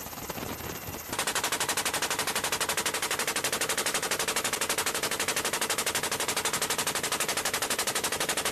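Door-mounted machine gun on a Navy helicopter firing one long continuous burst of rapid automatic fire, beginning about a second in. The helicopter's engine and rotor noise runs under it.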